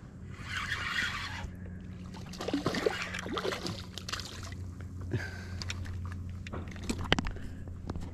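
Water splashing and sloshing at the side of a kayak as a small hooked snook is reeled in, with a few sharp clicks near the end.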